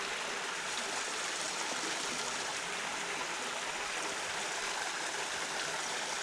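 Creek water flowing and babbling steadily over rocks.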